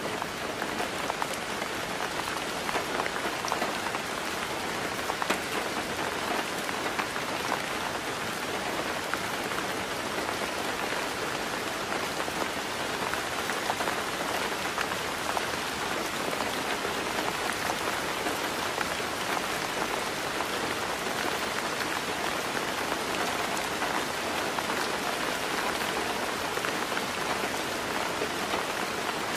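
Heavy rain falling steadily, a dense even hiss with many fine drop ticks.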